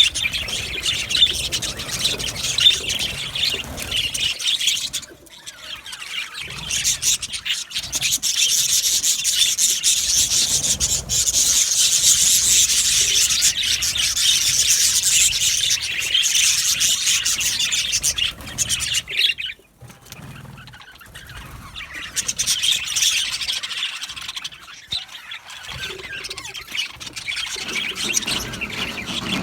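A flock of budgerigars chattering and chirping continuously in dense, overlapping calls. The chatter thins briefly about five seconds in and again near twenty seconds.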